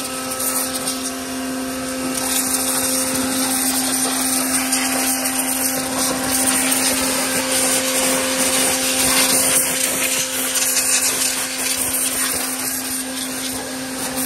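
Kapicon KP 40 pressure washer running with a steady hum, its high-pressure water jet hissing as it blasts a tractor's engine and front wheel.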